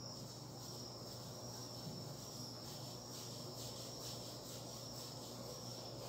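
Quiet room tone: a faint, steady high-pitched tone over a low hum.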